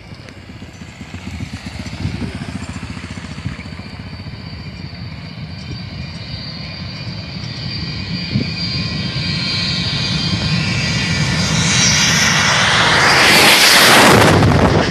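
Jet airliner on a very low pass: its engine whine grows steadily louder as it approaches, then swells into a loud roar as it passes overhead about thirteen seconds in.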